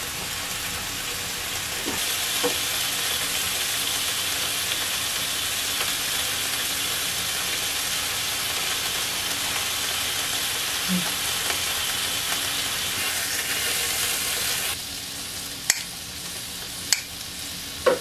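Hanwoo striploin sizzling on an electric griddle: a steady frying hiss that drops away sharply about fifteen seconds in, followed by a few sharp clicks.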